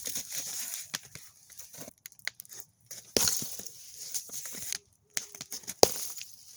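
Ice breaking: a run of sharp cracks and crunches, with a longer crunching break about three seconds in and the loudest single crack near the end.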